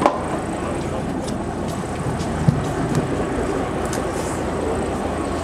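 Train engine running steadily, with a sharp knock right at the start and another about two and a half seconds in.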